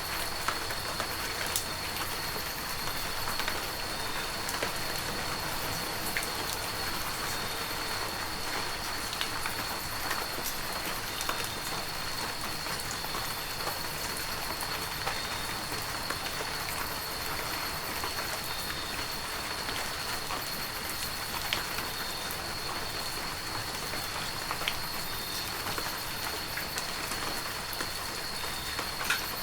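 Heavy rain falling steadily, with many scattered sharp drop hits, over a thin steady high tone.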